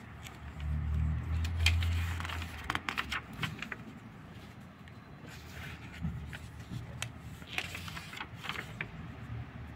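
Thin notebook pages being turned by hand, rustling and crackling in short bursts, twice. A low rumble sounds under the first page turn, starting about half a second in and lasting a couple of seconds.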